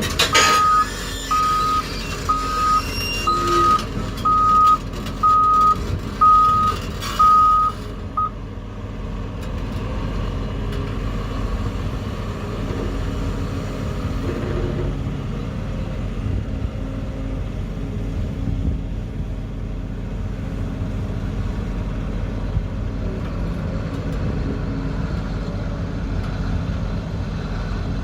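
A reversing alarm beeps about once a second and stops about eight seconds in, over the steady low drone of a heavy diesel engine from construction machinery, which keeps running to the end.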